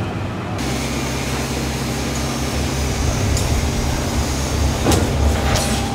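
Heavy machinery running with a steady low hum, joined by a few sharp clanks near the end.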